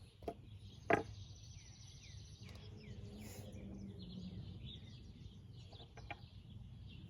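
Small birds chirping in the background, with a sharp click about a second in and fainter clicks later from the lock hardware being handled.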